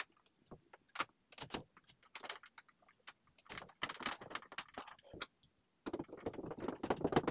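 Irregular light clicks, taps and scrapes from hands working at the top mounting hole of a medicine cabinet held against the wall, thickening into busier stretches about three and a half seconds and six seconds in.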